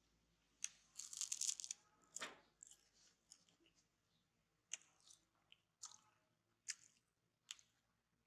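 Crackly crinkling of thin plastic packaging for just under a second, about a second in, then a string of sharp single clicks about one a second.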